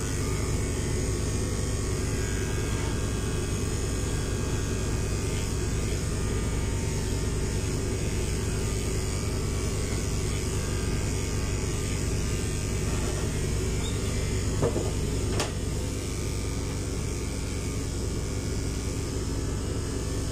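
Corded electric pet clipper running steadily as it shaves through a cat's long white coat, with one short click about fifteen seconds in.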